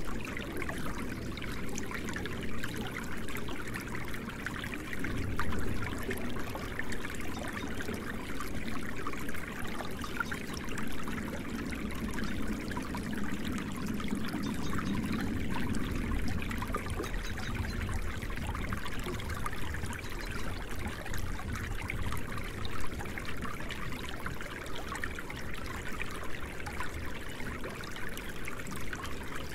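Steady sound of running water, like a stream trickling.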